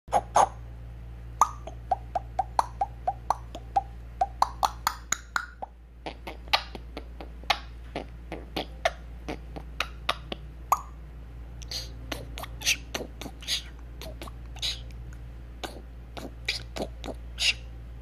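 African grey parrot beatboxing: a long string of sharp clicks and pops in a loose rhythm, several a second. Some of the pops carry a short pitched note.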